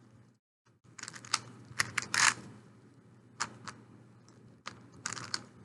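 Plastic 3x3 Rubik's Cube being turned quickly, its layers clicking and clacking in irregular clusters of rapid turns. The sound drops out completely for a moment just after the start.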